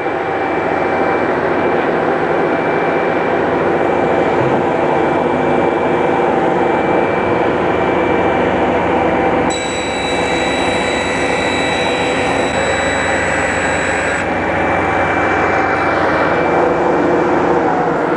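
Sliding table panel saw running steadily while its blade cuts a thin strip off an MDF panel. A higher whine rises over the running saw for a few seconds in the middle.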